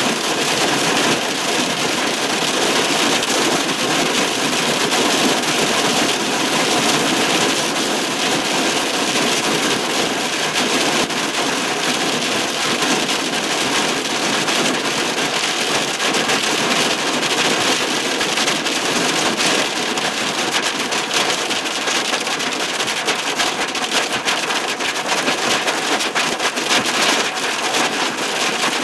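Hail and heavy rain pelting a car's roof and windshield, heard from inside the cab: a loud, steady, dense clatter of small impacts.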